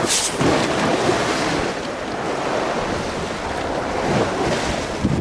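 Wind buffeting the microphone in a steady rush of noise, with the sea's surf underneath.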